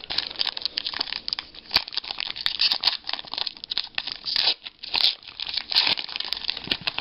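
Foil wrapper of a sports card pack being torn open and crinkled, a dense run of sharp crackles and rustles.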